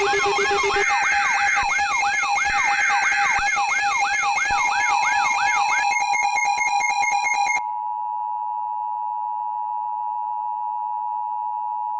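Mock Emergency Alert System audio: layered electronic alarm tones with a siren-like sweep rising and falling about twice a second, breaking into rapid choppy beeps about six seconds in. After about seven and a half seconds comes the steady two-tone EAS attention signal.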